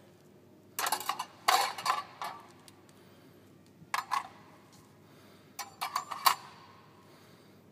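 Steel spring-clip barbell collars clinking and clattering as they are set down, one on another, on a plastic kitchen scale. The sound comes in several short bursts of metallic clicks with pauses between.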